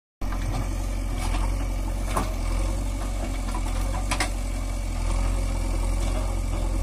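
Diesel engine of a JCB backhoe loader running steadily at low revs, with a few faint clicks.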